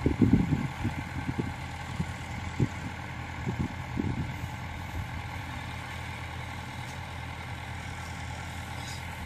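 Engine of a tracked rice-hauling cart idling steadily, with a few dull knocks in the first four seconds.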